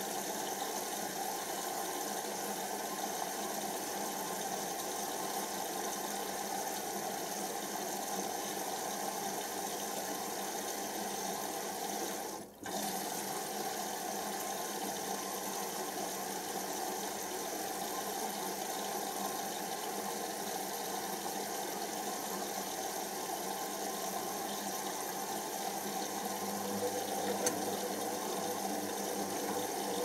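Hoover Optima OPH714D washing machine tumbling its drum during the cool-down stage of a 60 °C synthetics wash: the motor runs steadily while the load and water slosh in the drum. The sound briefly cuts out about twelve seconds in.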